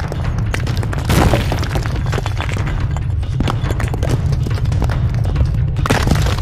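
Deep, continuous rumble of collapsing stone with sharp crashes about a second in, midway and near the end, under dramatic music.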